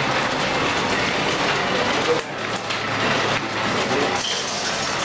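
Mahjong tiles clattering steadily at the tables, with a murmur of voices underneath.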